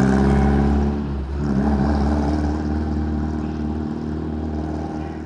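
Subaru flat-four engine in a VW Super Beetle running steadily as the car drives away. The engine note breaks briefly about a second in, then fades as the car moves off.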